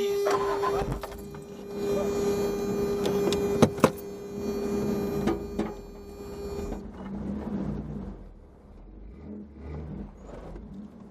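Off-road vehicle standing with its engine running, with a steady whine like a small electric motor's that cuts off suddenly about seven seconds in; two sharp clicks come a little before four seconds.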